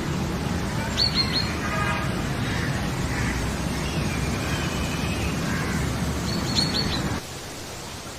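High, short chirps in quick groups of three or four, about a second in and again shortly before the end, over steady outdoor background noise. The sound cuts off abruptly about seven seconds in.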